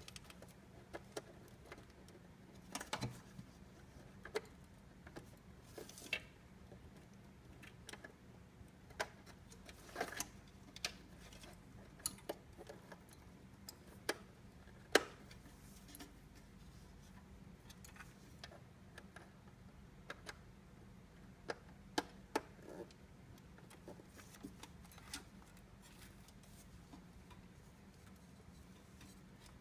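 Irregular small clicks and taps of small plastic and metal parts being handled, such as power-supply connectors and pins. The sharpest tap comes about halfway through.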